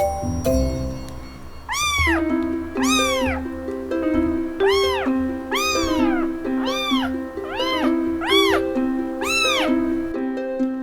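A kitten meowing repeatedly, about eight high-pitched cries that each rise and fall in pitch, over background music.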